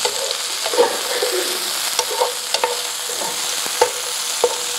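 Chicken pieces sizzling in oil in a sauté pan while being stirred with a metal spoon, which clicks and scrapes against the pan at irregular moments.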